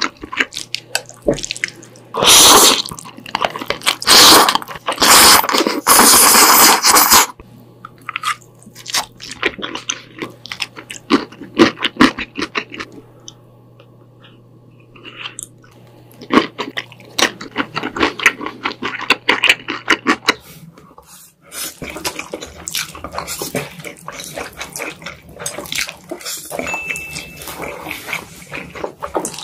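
Close-miked eating sounds of black bean noodles (jjajangmyeon): several loud slurps in the first seven seconds, then chewing with wet mouth clicks and smacks. After a cut about two-thirds through, another eater's chewing and slurping continues at a lower level.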